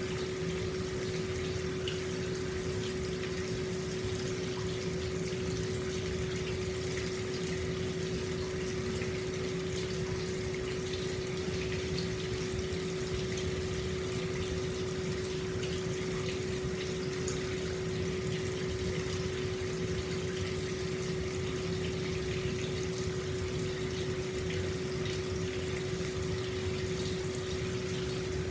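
Hot spring water flowing steadily into an open-air bath, an even, unbroken rush of water with a steady hum underneath.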